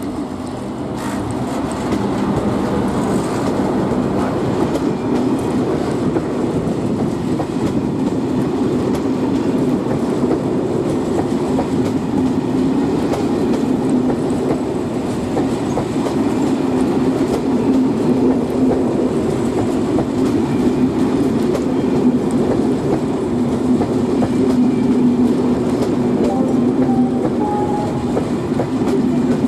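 Steady rumble of an SNCF BB 22200 electric locomotive and its train of Corail passenger coaches passing close by on the track, wheels running on the rails. It grows louder about two seconds in as the locomotive comes alongside, then holds steady as the coaches roll past.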